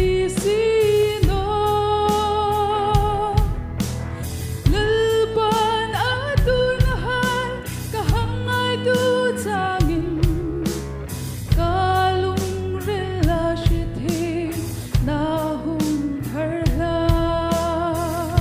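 A woman sings a Christian worship song in long, held notes with vibrato over backing music with bass and drums.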